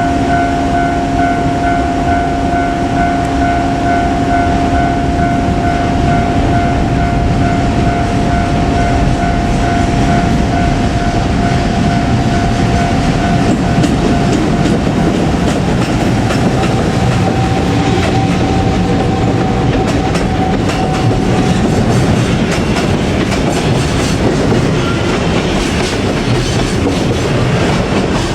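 Long container freight train rolling past behind an electric locomotive, its wagons' wheels clattering steadily over the rail joints. A level-crossing alarm rings through the first part and dies away about three-quarters of the way through.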